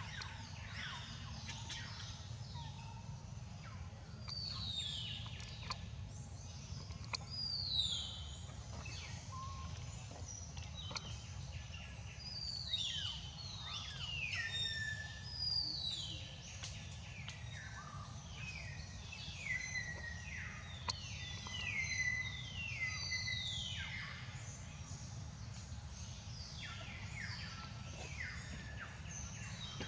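Birds calling: many short, high chirps that slide down in pitch, thickest through the middle of the stretch, over a steady low outdoor rumble.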